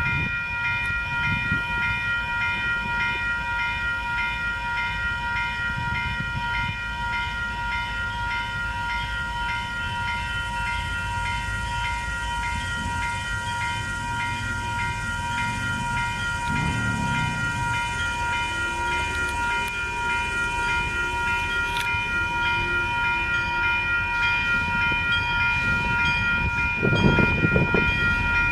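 Level crossing warning bells ringing steadily in quick repeated strokes while a diesel freight locomotive approaches. The locomotive's low engine rumble swells loudest near the end as it reaches the crossing.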